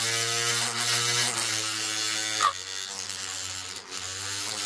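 Handheld cordless hobby paint shaker's electric motor running, shaking a paint bottle clamped in its head, with a steady buzzing hum. About halfway through it drops in loudness and keeps running.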